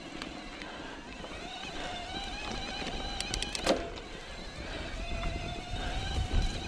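Electric bike motor whining steadily under pedal assist, with a quick run of clicks about halfway through. Wind rumble on the microphone toward the end.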